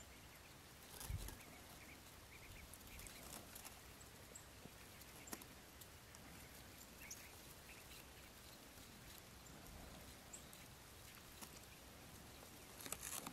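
Near silence: faint outdoor scrub ambience with a few faint short chirps and clicks, and a soft low thump about a second in.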